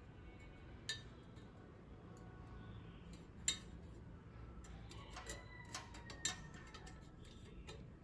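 A handful of sharp clicks and light metallic clinks, as of small hard parts being handled and fitted, the loudest about three and a half seconds in, over a steady low hum.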